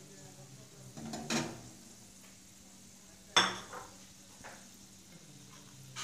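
Metal spatula knocking and scraping in a metal karai while whole spices fry in oil with a faint sizzle. There are a few separate knocks, the sharpest about three and a half seconds in, over a steady low hum.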